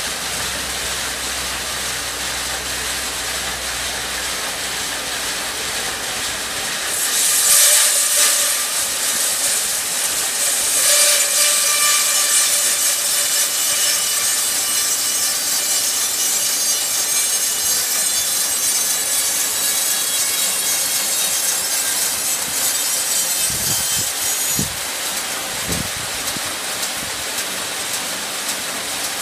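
Large log band saw (block band saw) running with a low hum, then cutting through a log from about seven seconds in: a loud, steady hiss of the blade in the wood with a faint whine over it. The cutting sound drops off about five seconds before the end, with a few low knocks.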